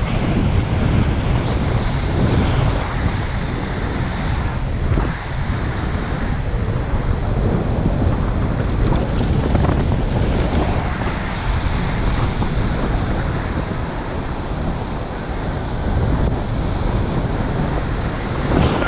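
Wind rushing over the microphone of a camera carried on a paraglider in flight: a loud, steady low rumble of buffeting air.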